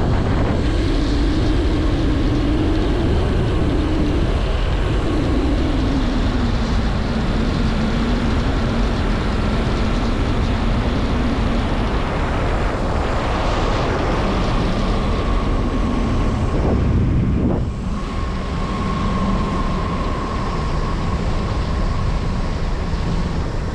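Zipline trolley running fast down a steel cable: a loud, steady rush of wind on the microphone with the pulley wheels' hum, which sinks slowly in pitch as the ride slows. The rush drops a little about eighteen seconds in.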